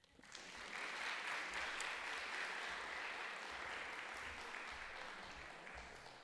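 Audience applauding, building up over the first second and tapering off near the end.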